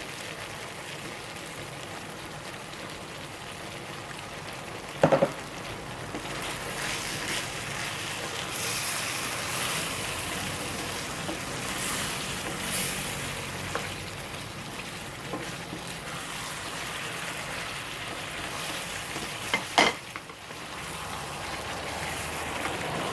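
Pork liver, onions and spring onions sizzling in a frying pan in a soy sauce and lemon sauce while being stirred. Two sharp knocks stand out, about five seconds in and again near the end.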